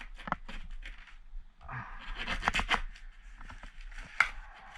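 Steak knife cutting and scraping through the tape and cardboard of a parcel: a run of short scratchy strokes, busiest in the middle, then a sharp snap near the end.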